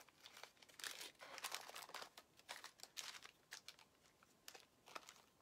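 Faint, irregular crinkling and small clicks of plastic as little bags of KAM plastic snaps are handled and rummaged through in a plastic organizer box.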